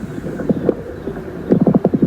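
Coarse lung crackles: clusters of short, low-pitched popping clicks over a steady low breath noise, with one cluster about half a second in and a denser run of clicks about a second and a half in. The sound is the sign of secretions or fluid in the large and medium airways.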